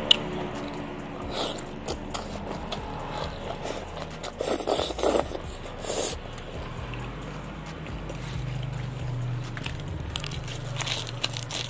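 Close-miked eating sounds: fingers scraping and gathering rice on a plate, wet chewing, and small crackles of handled leaves, with a sharp click at the very start.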